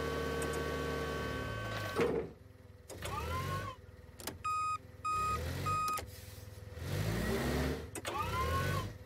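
Forklift running: a steady motor hum that breaks off with a knock about two seconds in, followed by several whines of the forklift's motor rising and falling in pitch as it drives and lifts. A backup beeper beeps about twice a second for a second or so in the middle.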